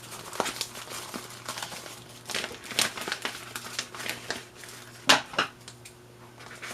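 Packing material crinkling and rustling as it is handled and pulled off a shipped plant, with two sharper crackles about five seconds in.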